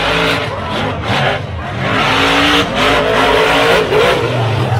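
Monster truck engines revving loudly on the dirt track, the pitch rising and falling with the throttle.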